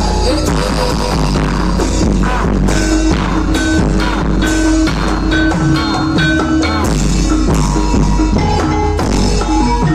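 Live Javanese jaranan dance music from a gamelan-style ensemble: drums, gongs and ringing metal percussion playing loudly, with a steady beat.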